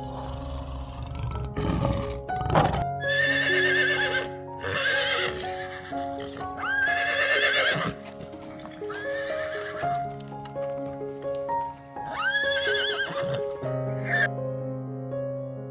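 About six high, wavering animal cries of about a second each, one every one to two seconds, over background music of slow sustained notes.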